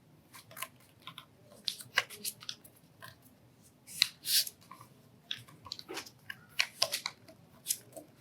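A square sheet of paper being folded by hand: irregular short crinkles and rustles as a flap is lifted and pressed into a crease.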